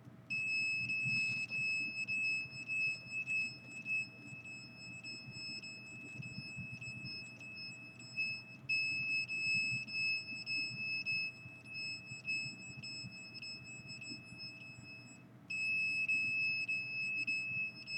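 Handheld microwave detector sounding its alarm: a high, steady electronic tone, which means the reading has risen above the alarm threshold. The tone breaks off briefly about eight and a half seconds in, and again about fifteen seconds in, then comes back.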